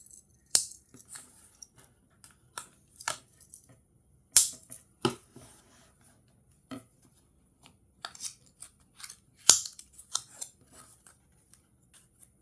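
A small cardboard retail box being cut open with a pocketknife and unpacked. Scattered sharp clicks, scrapes and paper rustles come with quiet gaps between them, and a few louder snaps stand out.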